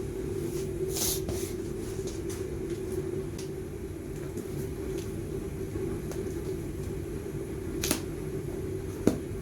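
Adhesive tape being pulled off the roll and torn in short rips, one about a second in and a sharper one near the end, with a click just after, over a steady low hum.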